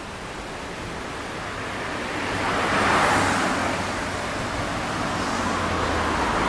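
Road vehicles passing: one swells up and peaks about halfway through, and another builds near the end, over a steady rushing hiss.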